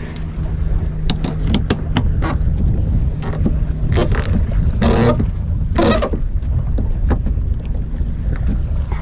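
Sailboat sheet winch clicking as its handle is cranked to tighten the sheet, with louder ratcheting bursts about four, five and six seconds in. Steady wind noise on the microphone underneath.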